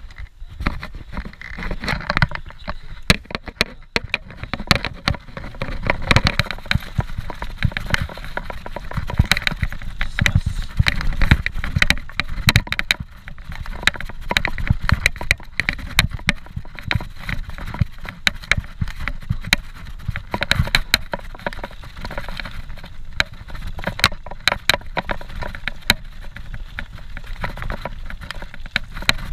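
Scott Genius 740 mountain bike descending a dirt and gravel trail at speed: the tyres rumble over the ground while the bike and handlebar-mounted camera rattle and knock constantly with every bump.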